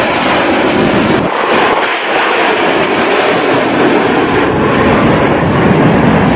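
Jet engine noise from USAF Thunderbirds F-16 Fighting Falcons flying past in formation: a loud, steady rushing roar with an abrupt change just over a second in.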